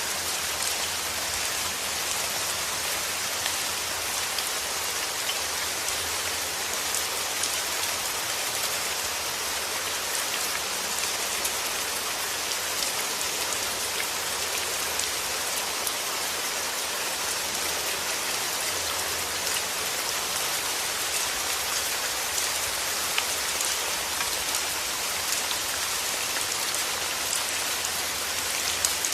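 Steady rain falling on a surface, an even hiss filled with many small drop ticks.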